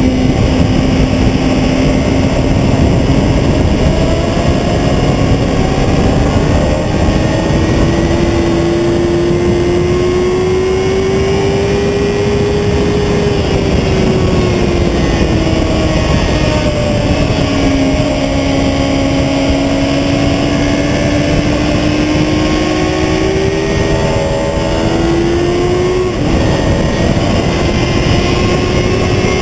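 Sport motorcycle engine at speed on a racetrack, its pitch climbing and falling as the rider accelerates and slows, with a sudden drop in pitch near the end, under heavy wind rush on the fairing-mounted microphone.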